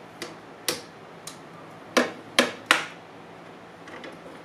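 Sharp clicks and knocks of metal and plastic parts on a Kobalt portable table saw as a spring-loaded pin is pulled out and seated in its hole. About six separate clicks, the three loudest in quick succession about two seconds in.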